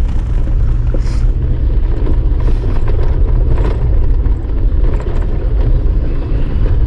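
Jeep Wrangler JK Unlimited driving on a rough mountain dirt trail: a steady, loud low rumble of engine and tyres.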